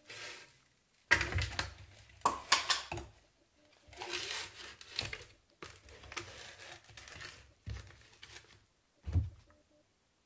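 Disposable-gloved hands rubbing a dry spice rub into a raw skinned rabbit and turning it over on a glass plate: irregular crinkling, squishing handling noise in bursts, with a short dull thump about nine seconds in.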